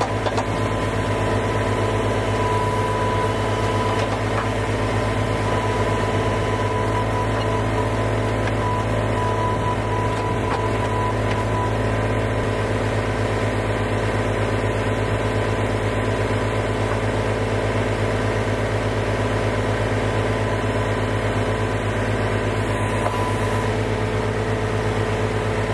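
An engine running at a steady speed, with a strong low hum and a few even higher tones that don't change.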